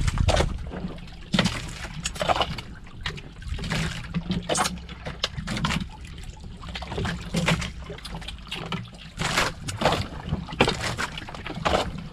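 Sea water lapping and sloshing against the hull of a wooden outrigger fishing boat, with irregular small knocks and clinks of plastic plates and bowls as the crew eat by hand on deck, over a low steady rumble.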